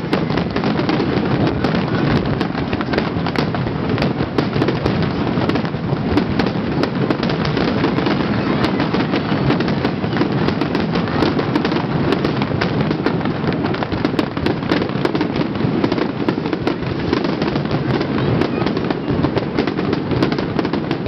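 Fireworks display: a dense, continuous barrage of bangs and crackling from aerial shells bursting, with many sharp cracks packed close together.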